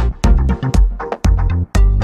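Electronic background music with a steady beat and deep bass.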